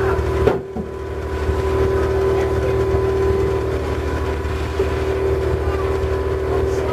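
Boat engine running steadily under way, an even low drone with a constant hum over it. The sound dips briefly about half a second in.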